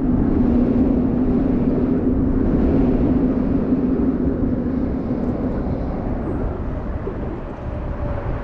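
Steady engine drone over a low rumble, the drone fading away after about five seconds.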